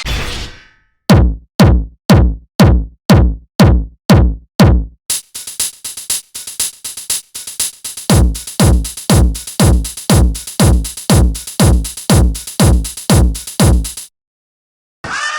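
Electronic drum-machine beat: a synthesized kick-like thump that sweeps quickly down in pitch, repeating about twice a second. About five seconds in a steady high hiss joins it, and the beat grows louder partway through before cutting off suddenly near the end.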